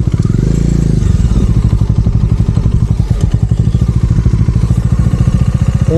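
Motorcycle engine running as the bike moves off, with a quick rev in the first second, then steady even pulsing.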